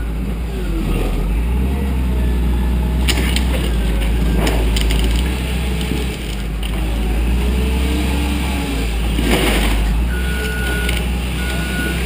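Diesel engine of a wheel loader running under load as its bucket pushes into a wooden barn wall. Several loud knocks and crashes come from the wall, and near the end a backup alarm beeps about twice a second.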